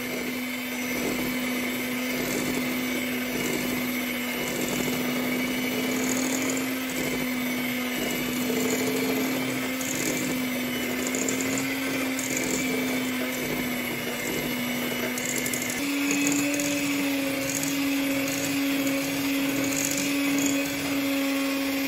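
Handheld electric mixer running steadily, its twin wire beaters whipping butter-and-sugar cookie dough in a glass bowl. The motor's hum steps up slightly in pitch about two-thirds of the way through.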